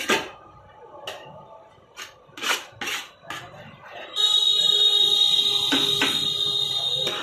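Knocks and clinks of steel pots and cooking utensils at a dosa griddle, then, about four seconds in, a loud steady high-pitched tone with a hiss that holds for about three seconds.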